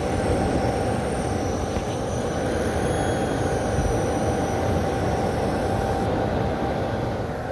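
A 6000xp machine running with a steady noise and hum, over which a high-pitched squeal wavers and fades out about six seconds in.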